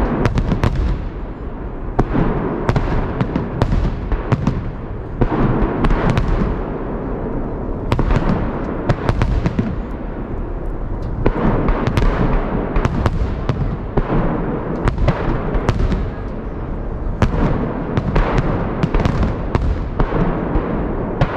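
Holiday fireworks salute: aerial shells bursting in quick clusters of sharp bangs, each trailing off in echo, over a continuous low rumble.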